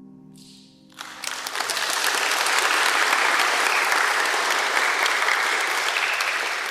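The last piano chord fading away, then audience applause breaking out suddenly about a second in and carrying on steadily.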